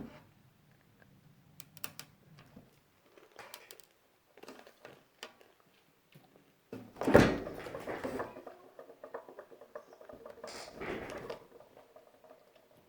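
Small clicks and rustles of a Nerds Rope candy being handled and eaten, with one loud bump about seven seconds in.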